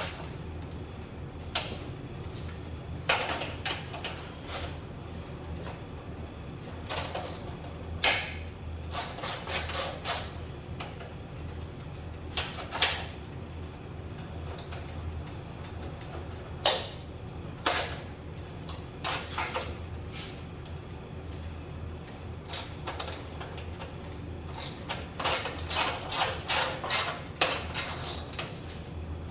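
Hand work on a truck's radiator mounting: scattered metallic clicks, knocks and rattles of parts and hand tools, coming in irregular clusters. A steady low hum runs underneath.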